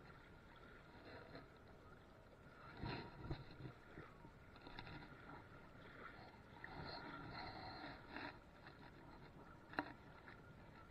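Faint water splashing against concrete rubble, with one sharp click near the end.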